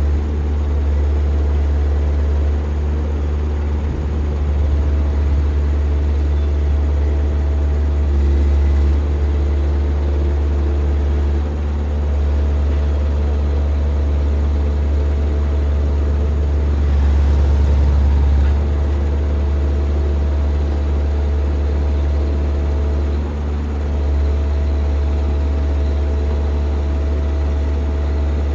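Heavy diesel engine of road-works machinery running steadily with a low, even drone and no revving.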